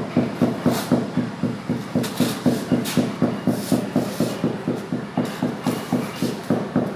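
A large floor tile being tapped down into fresh tile adhesive to bed it: steady, dull knocks, about four a second.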